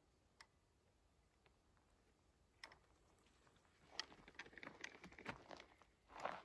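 Quiet footsteps on a grassy forest path, with twigs and needles crackling underfoot. A few faint ticks come first, the crackling grows busier about two-thirds of the way in, and a louder brushing step comes near the end.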